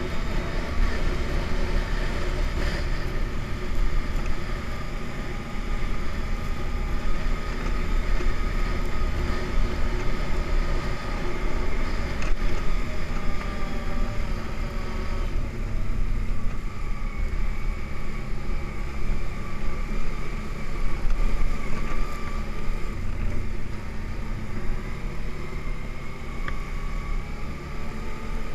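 ATV engine running steadily as the machine is ridden along a snowy trail, with an uneven low rumble from the ride; the engine's pitch shifts a little about halfway through.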